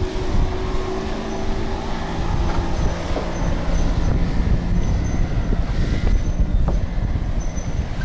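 Steel cables and fittings of a suspension footbridge creaking and squealing as it sways under people walking across, over a steady low rumble.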